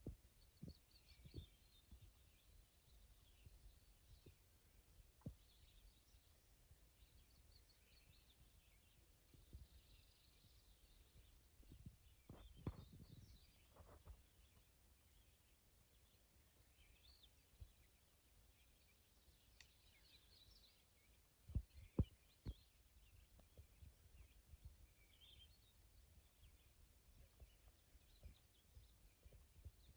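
Near silence with faint, scattered birdsong. Occasional soft low bumps, and two brief thumps about two-thirds of the way through.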